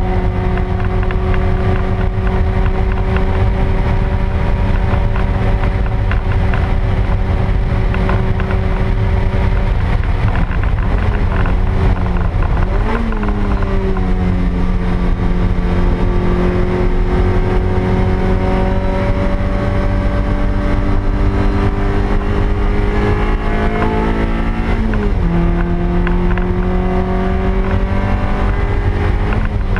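A 2000 Toyota MR2 Spyder's stock 1ZZ 1.8-litre four-cylinder engine running hard on track, heard from inside the cabin over heavy road and wind noise. The engine pitch holds steady for about ten seconds, wavers and jumps briefly, then climbs slowly under acceleration and falls sharply at an upshift about 25 seconds in.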